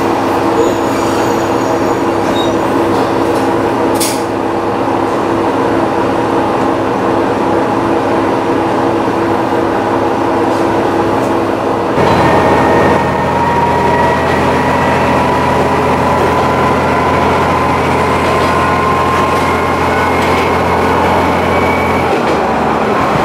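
Diesel railcar heard from its rear driver's cab, running steadily. About halfway through the sound changes abruptly to a deeper engine hum with a slowly rising whine as the car runs along the track. The low hum drops away near the end.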